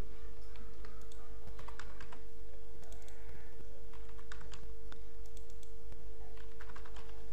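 Computer keyboard keys clicking in short, irregular runs of keystrokes, over a steady hum.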